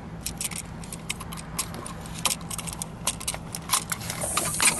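Irregular small metallic clicks and clinks as a 50-amp receptacle, its steel mounting bracket and wires are handled and fitted together by hand.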